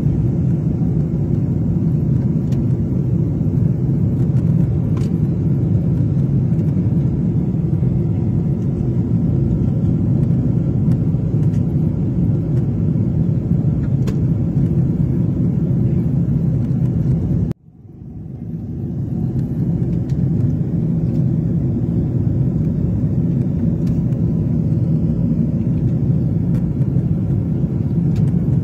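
Steady low rumble of a jet airliner's cabin while it taxis, its engines running at low thrust. About two-thirds of the way through the sound cuts out suddenly and swells back over a couple of seconds.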